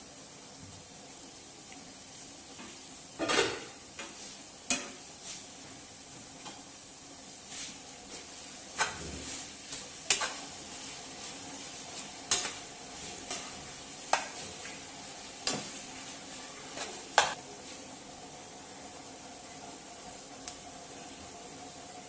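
Mutton and bitter gourd stir-fry sizzling in a nonstick wok while a spatula stirs it, scraping and knocking sharply against the pan at irregular intervals through the middle, then mostly the steady sizzle alone near the end.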